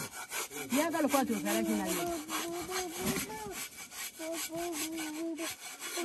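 Fast, rhythmic scraping and rubbing on a taped cardboard box, dense for the first few seconds and again near the end.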